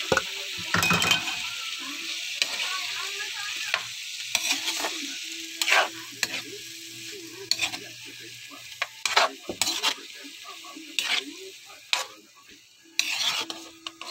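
Squid and chopped vegetables sizzling in an oiled wok while a spatula stirs and scrapes against the pan several times. The sizzle grows fainter toward the end.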